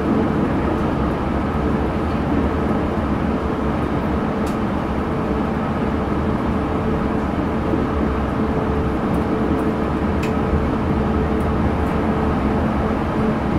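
Yurikamome rubber-tyred automated guideway train running at a steady speed, heard from inside the car: an even rumble with a constant hum.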